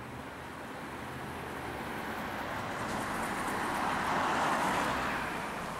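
A motor vehicle running, its noise swelling to a peak about four seconds in and then fading, with a low engine hum underneath.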